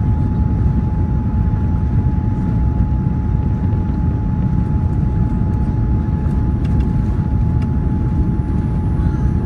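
Jet airliner cabin noise on final approach: a steady low rumble of airflow and engines with a faint whine held on one pitch. A few faint ticks come near the end.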